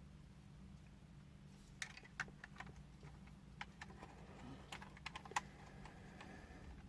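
Faint, scattered clicks and taps of hard plastic toy parts being handled and pressed together, over a low steady hum.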